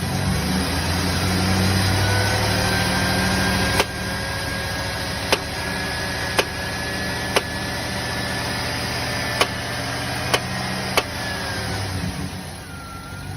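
GM engine idling with a sharp pop every second or so, seven pops at uneven intervals over the steady running; the owner suspects a lifter.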